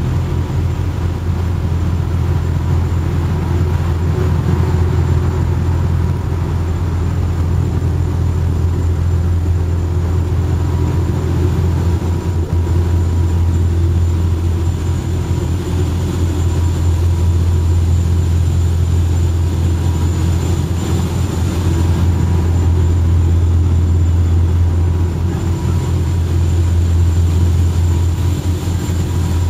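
Island passenger ferry's engines running with a steady low drone.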